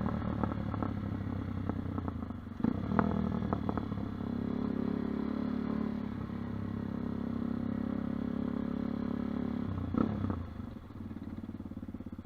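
Dirt bike engine running at steady revs, with a few knocks and rattles. About ten seconds in there is a sharp knock and the revs drop to a quieter, evenly pulsing idle.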